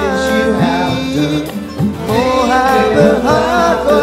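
A man singing a song while strumming chords on an acoustic guitar.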